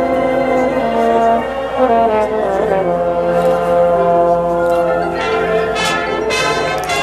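Marching band playing held brass chords with bell tones from the front-ensemble percussion. The chords shift about two seconds in, and sharp percussion strikes come in near the end.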